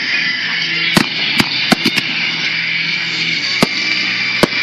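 Aerial firework shells bursting with sharp bangs, about six in an irregular series: a quick cluster around one to two seconds in, then two more spaced out near the end.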